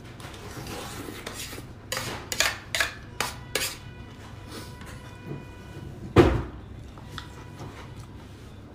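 Metal spoon clinking and scraping against a metal serving pan: a quick run of clicks, then one heavier knock about six seconds in, with the pan's metal ringing on afterwards.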